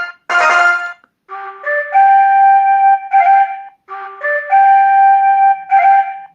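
Sanyo MVP cell phone ringtones: the last short chords of one tone end about a second in, then a new ringtone plays a short melody of held notes twice through.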